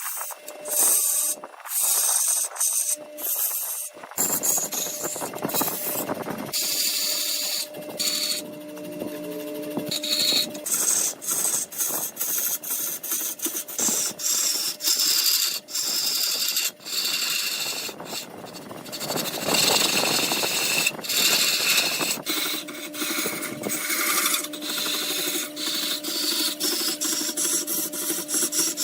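Wood lathe running while a turning tool cuts into the spinning wood: a hissing scrape over a steady motor hum, broken by many abrupt dropouts.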